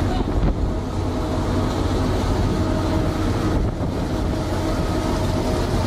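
A fishing trawler's engine and deck machinery running with a steady low hum, under the rushing wash of water and fish pouring out of an opened codend into the deck hopper.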